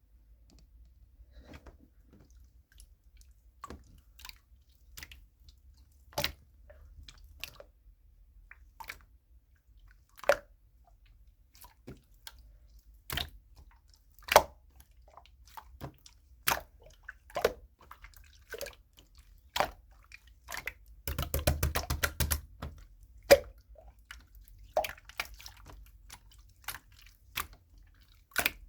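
Slime being squeezed and poked by hand, giving separate sharp wet pops and clicks about once a second, with a quick run of crackling pops about two-thirds of the way through.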